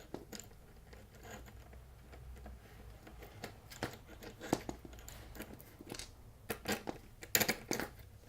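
Skateboard truck hardware being handled: irregular clicks and short metallic rattles of bolts, nuts and a skate tool against the trucks and deck, the loudest cluster near the end.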